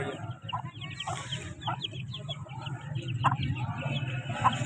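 Chickens clucking, a short call every second or so, among many quick high chirps from other birds, over a steady low hum.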